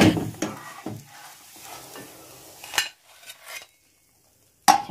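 Buckwheat pancake frying in oil in a nonstick pan: a soft sizzle, broken by sharp clicks and scrapes of a utensil against the pan. The sound drops out for about a second near the end, then one more sharp knock.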